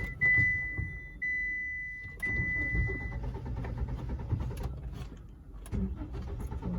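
A car's warning chime sounds about once a second for the first three seconds, over a low mechanical rumble from the car as it is cranked and does not start. The owner is unsure of the cause and suspects the fuel injector, the fuel pipe or the spark plugs.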